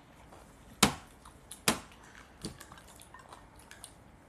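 Tableware knocking at a dinner table: two sharp clacks under a second apart, then a fainter one.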